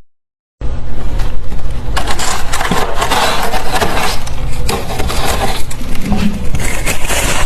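Fluffy ice being bitten and chewed close to the microphone: a dense, loud, continuous crunching full of fine cracks. It starts after a half-second gap.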